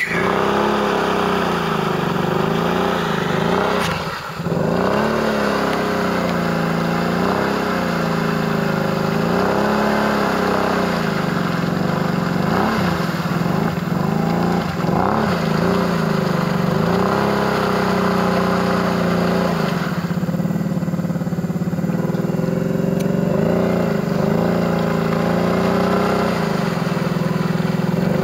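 ATV engine revving up and down over and over as the quad churns through deep pond water, with a brief drop in the engine note about four seconds in.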